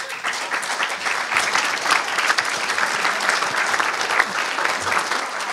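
Audience applauding: many hands clapping together in a steady run that swells in just before and holds throughout.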